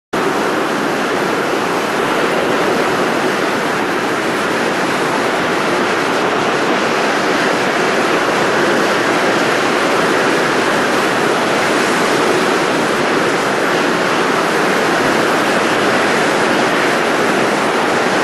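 Steady, unbroken rushing of blown air, a 'blow' sound effect, starting abruptly.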